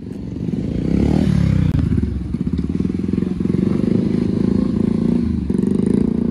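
Motorcycle engine running loud and hard, a dense rough rumble, with a brief drop in pitch about a second in.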